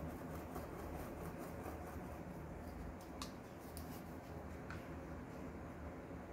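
Faint scratching of a paintbrush working acrylic paint into a cloth towel over a low steady room hum, with a few soft ticks around the middle.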